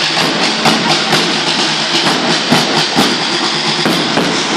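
School marching band's drum section (snare drums, bass drum and cymbals) playing a steady march beat, about two strokes a second, over a constant hissing cymbal wash.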